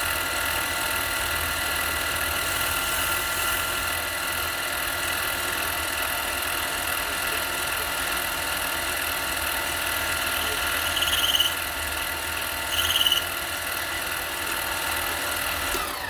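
Harbor Freight mini lathe running steadily while taking a light finishing cut on an aluminium hub-centric ring, with two brief high squeals about 11 and 13 seconds in. Near the end the lathe is switched off and its whine falls in pitch as it spins down.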